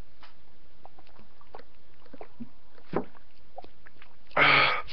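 Steady background hiss with a few faint ticks and a soft knock about three seconds in. Near the end comes a short, loud, throaty vocal sound from a man whose mouth and throat are burning after eating a raw habanero pepper.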